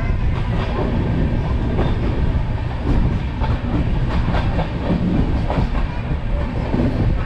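Passenger train running, heard from aboard: a steady rumble with the clickety-clack of the wheels over rail joints.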